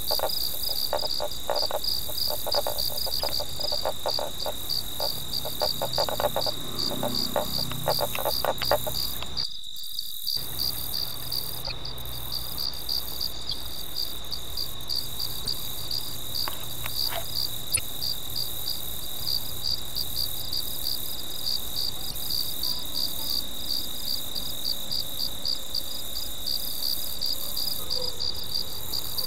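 Night insect chorus: a continuous high-pitched trill with a regular pulsed chirping over it, typical of crickets. For the first nine seconds or so a lower, rapidly pulsing call sounds alongside it.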